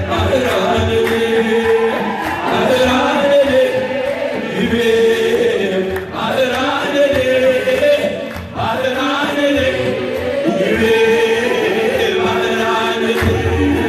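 Many men's voices singing an Ethiopian Orthodox mezmur (hymn) together, in phrases that rise and fall and repeat every few seconds.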